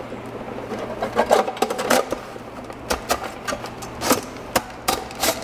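Alpine single-DIN car stereo deck sliding into its metal mounting sleeve in a dash kit: metal scraping with a string of sharp clicks and knocks, more of them in the second half.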